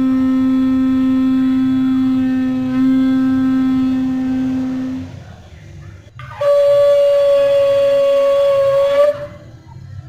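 Shofar blown in two long blasts: a low note held until about five seconds in, then after a short pause a higher note held for about three seconds.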